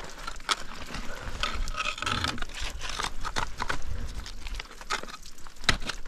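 Ice axe picks and crampon points striking and scraping on waterfall ice during a climb: irregular sharp knocks with scraping between them, the loudest strike near the end.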